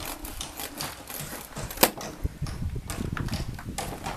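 Irregular scuffs, knocks and clicks of an old car tire being worked by hand and stepped into on gravel, with one sharp click a little before two seconds in.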